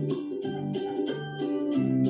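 Background music: a keyboard tune with an organ-like sound over a steady beat, about two and a half beats a second.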